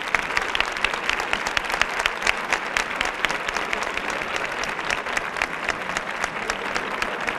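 Large crowd applauding: many hands clapping densely and steadily.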